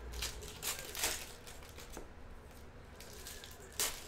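Foil wrapper of a trading-card pack crinkling and tearing as it is ripped open by hand, in a few short bursts in the first second and again near the end.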